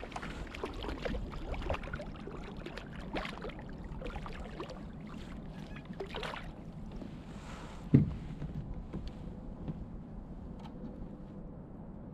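Hooked carp splashing and thrashing at the surface beside a kayak, with irregular clicks and knocks from the rod and gear as it is brought aboard. A single sharp thump about eight seconds in.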